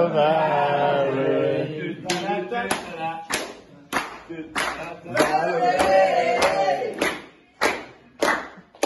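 A young man singing a team initiation song unaccompanied, holding long notes, while his teammates clap a slow, even beat of about one and a half claps a second, starting about two seconds in.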